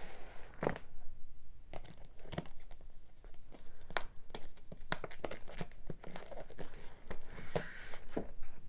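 Clear plastic sleeves holding packs of scrapbook paper crinkling and rustling as a hand flips through them, with irregular sharp crackles throughout.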